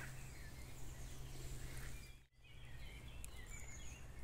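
Faint woodland ambience with scattered distant bird chirps over a steady low hum. The sound drops out briefly just past the middle.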